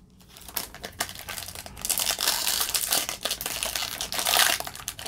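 Foil wrapper of a 2022 Topps Baseball Series 1 card pack crinkling and tearing as it is pulled open by hand, getting louder about two seconds in.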